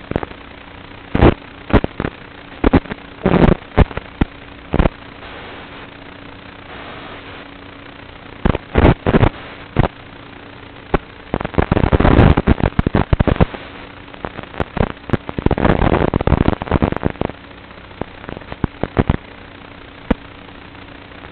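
Recording from a 3-inch FPV quadcopter flight: irregular sharp pops and short crackling bursts, clustered in two longer rough patches near the middle and later on, over a steady low hum.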